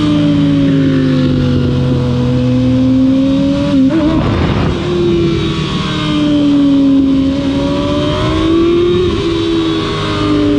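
Kawasaki ZX-6R inline-four engine running while the bike is ridden, its note slowly falling and rising with the throttle, with a short break about four seconds in. A steady rush of wind noise runs underneath.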